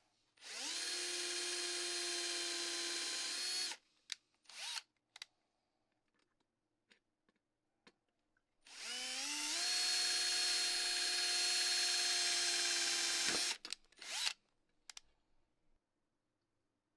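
Cordless drill boring small pilot holes through a thin steel plate: two long runs of the motor, each spinning up with a rising whine and then holding a steady pitch for several seconds, each followed by a short burst, with light clicks in between.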